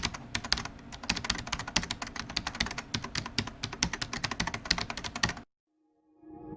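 Rapid, irregular clicking, many sharp clicks a second, that stops abruptly about five and a half seconds in. After a brief silence, soft sustained music begins near the end.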